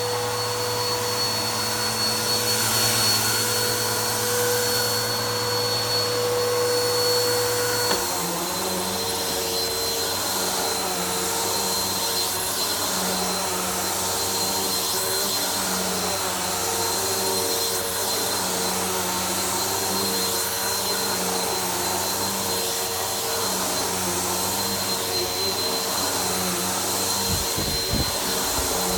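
Vacuum cleaner running steadily while vacuuming a floor; about 8 seconds in its pitch steps down slightly and its tone changes, then it runs on steadily.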